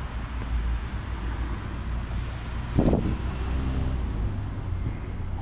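Outdoor street ambience: a steady low rumble of wind on the microphone and traffic, with one brief louder sound a little before the middle.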